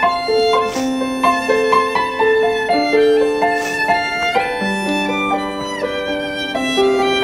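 Violin music: a slow melody of held bowed notes moving step by step, with a plucked string accompaniment beneath.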